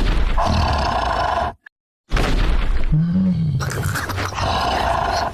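A loud growling roar with grunts, cut off suddenly by a silence of about half a second a little over a second and a half in, then resuming.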